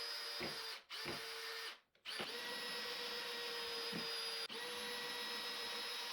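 Cordless drill-driver running steadily in bursts as pocket-hole screws are driven into a timber frame: two short runs, then one long run with a brief stop about four and a half seconds in.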